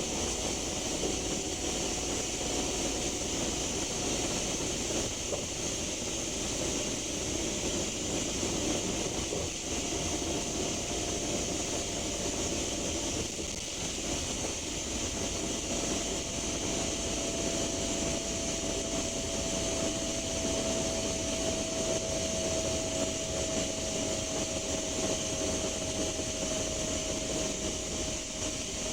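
Scania K310UB bus with its 5-cylinder 9.3-litre DC9 diesel running at steady speed: a continuous engine and road noise with a faint tone that slowly falls in pitch over the second half.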